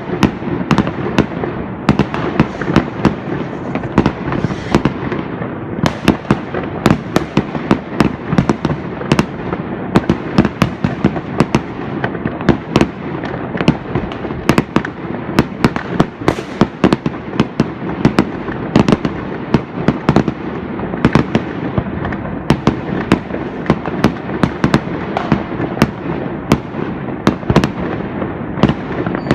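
New Year's Eve fireworks going off continuously: a dense, irregular barrage of bangs and cracks from rockets and firecrackers, several a second, over a constant rumble of more distant explosions.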